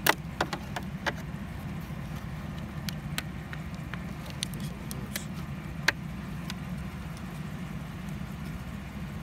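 Sharp plastic clicks and taps, a dozen or so at irregular intervals, as a flathead screwdriver pries at the puddle lamp's wiring connector and plastic housing under a pickup's side mirror to unplug it. The loudest snap comes about six seconds in. A steady low rumble runs underneath.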